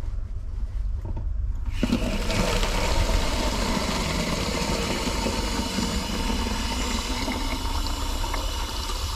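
Water running from a tap into a plastic bottle, starting about two seconds in and then flowing steadily.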